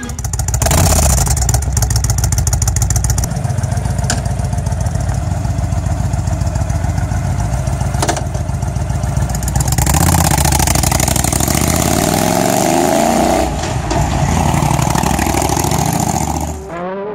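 Honda VTX 1300's V-twin engine running with a fast, even firing pulse. It revs up from about ten seconds in, rising in pitch as the bike pulls away, then drops off just before the end.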